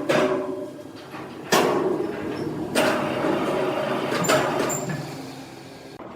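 Sawmill machinery clanking: three or four heavy knocks that ring on briefly, over a steady mechanical hum.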